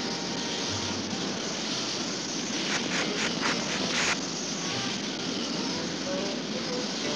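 Cartoon jet-engine sound effect: the steady rushing roar of a jet in flight. A quick run of short clicks comes about three seconds in.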